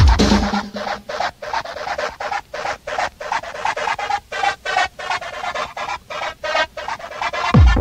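Techno DJ mix in a breakdown: the kick drum drops out about half a second in, leaving a quick high hi-hat and percussion pattern of about four hits a second, and the kick drum comes back near the end.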